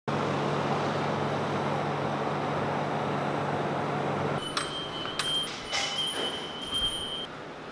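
Steady street noise with a constant low hum for about four seconds. Then a quieter room with a few sharp clicks and clinks and a thin, high steady tone that stops shortly before the end.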